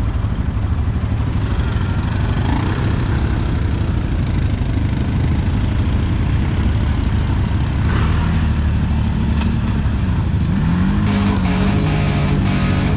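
ATV engines running with a steady low rumble. About eight seconds in, a nearby engine's pitch comes up, and it revs higher about ten and a half seconds in.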